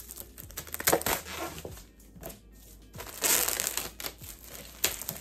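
Cellophane wrap being slit with a box cutter and peeled off a toy box, crinkling and crackling unevenly, loudest about a second in and again just after three seconds.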